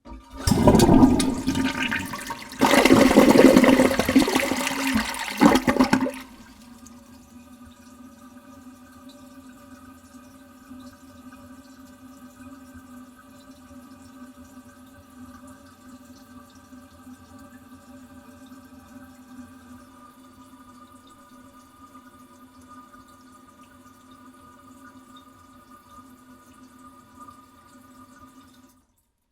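Toilet flushing: a loud rush of water for about six seconds, surging twice. Then the tank refills with a quieter, steady humming tone that stops shortly before the end.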